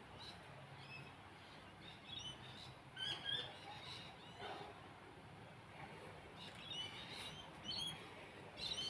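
Small birds chirping repeatedly in short high calls, over the faint low hum of a 1980 GEC Mackay ceiling fan running on high speed.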